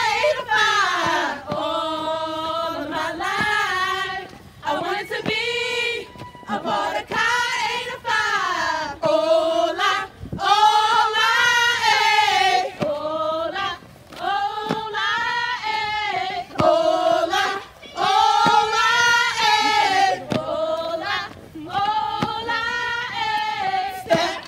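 A group of women singing a probate chant together in unison. Phrases of a second or two are separated by brief breaths, and the held notes bend down and back up.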